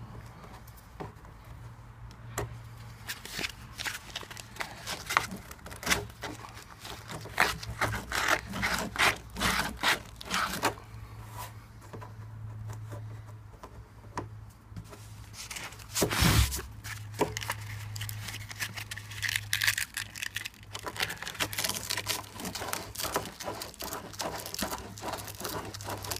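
Sandpaper rubbed by hand around the edge of a freshly drilled hole in a plastic barrel, in runs of quick scratchy strokes, smoothing it so the tap's washer will seal watertight. A single loud knock comes about halfway through.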